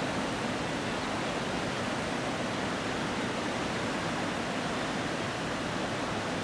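Steady rush of river water pouring over a low weir and churning through the white-water rapids below it.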